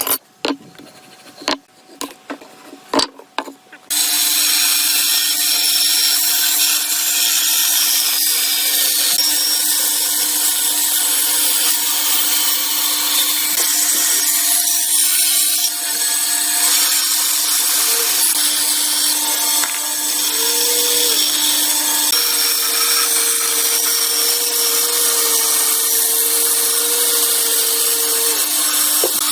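A few sharp knocks, then an electric power tool starts about four seconds in and runs steadily on wood, with a constant machine hum under a loud noisy whir.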